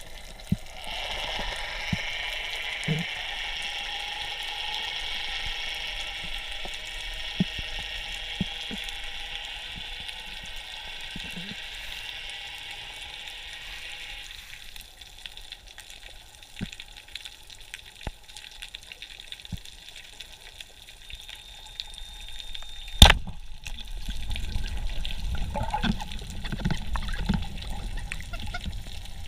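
Underwater water noise: a steady hiss for the first half, with scattered faint clicks. About 23 s in comes one loud, sharp crack, the speargun firing, followed by a low rumbling water noise.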